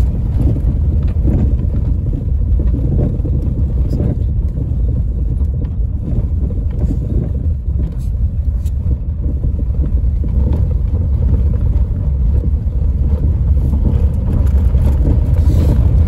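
Loud, steady low rumble from the front of a Renault Triber while it is driven, heard in the cabin near the steering column; the noise comes through the steering and is traced to a faulty steering rack.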